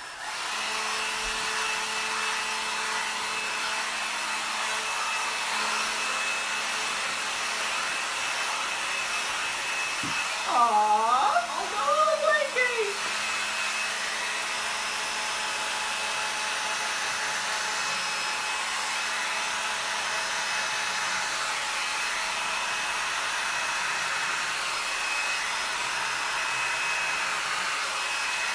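Handheld hair dryer blowing steadily, pushing air across wet acrylic paint on a canvas. A person's voice briefly rises over it about ten seconds in.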